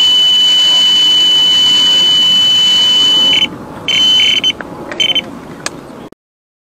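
Electronic carp bite alarm sounding one continuous high tone as a carp runs off with the line: a full run. About three and a half seconds in, the tone breaks into a few short beeps, then stops as the rod is lifted off the alarm.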